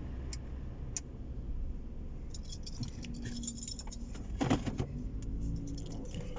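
Car's electric radiator cooling fan running on with a steady low hum after the engine and air conditioning are switched off, a fault the owner puts down to the fan control module. Clinking and rattling a few seconds in, loudest about halfway through.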